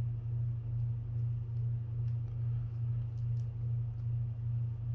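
Steady low hum, with a few faint light clicks from a small wire spring and a plastic spinning-reel part being handled.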